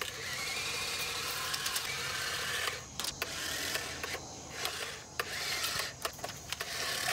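Battery-powered toy money gun's small electric motor and rubber feed wheel whirring as it shoots paper play-money notes out. There is one long burst of about three seconds, then several shorter ones that start and stop with the trigger.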